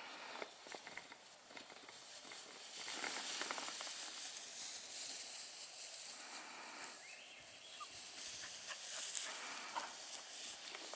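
Bordoodle puppies playing in grass: continual rustling and scuffling with short crackles over a steady hiss.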